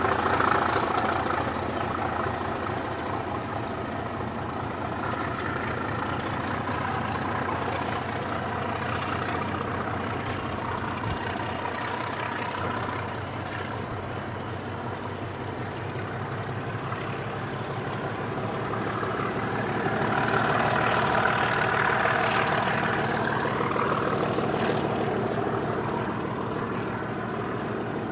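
Class 37 diesel-electric locomotive's English Electric V12 engine working as it hauls a train away along the line, with a thin high whistle that rises slowly in pitch. The sound swells louder about twenty seconds in, then eases.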